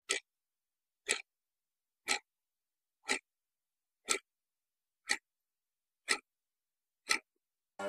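Clock-tick sound effect: eight single sharp ticks, one a second, with silence between them.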